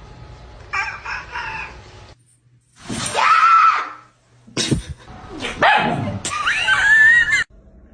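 Cats yowling and screeching in several separate calls that waver up and down in pitch, each starting and stopping abruptly as if cut together.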